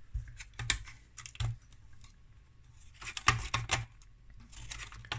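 Irregular light clicks and knocks of the parts of an opened plastic-cased power supply being handled: the toroidal transformer and the circuit board shifting in their black plastic housing, coming in small clusters.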